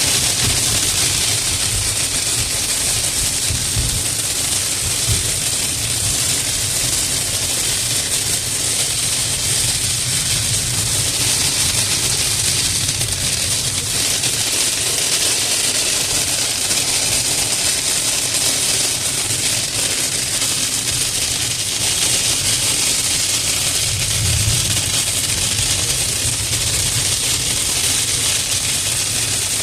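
Heavy rain and hail pelting a car's roof and glass in a cloudburst, a loud, dense, unbroken patter.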